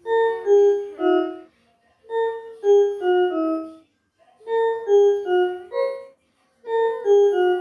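Toy electronic keyboard playing a short descending run of notes, the same phrase four times with brief pauses between.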